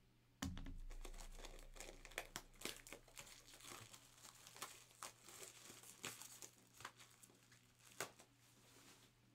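Faint crinkling and tearing of the plastic wrap on a pack of toploaders (rigid plastic card holders) being opened, in short scattered crackles and clicks. A dull knock comes about half a second in.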